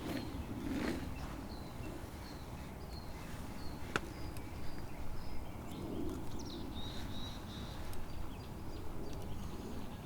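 A bird calling outdoors: short high chirps repeated about twice a second, over steady outdoor background noise with a few soft low thuds.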